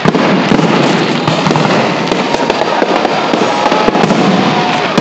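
Fireworks display going off: a sharp bang right at the start, then a dense, continuous barrage of shell bursts with many small pops.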